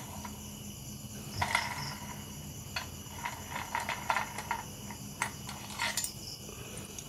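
Hand tools and loose screws on the casing of a Lifan 160cc motorcycle engine being opened up: scattered small metallic clicks and clinks, over the steady chirring of crickets.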